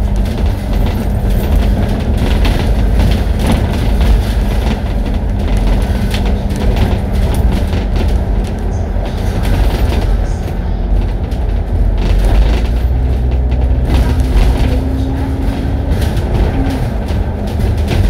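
Bus engine and road rumble heard from inside a moving double-decker bus: a loud, steady low drone with a constant hum and scattered light clicks.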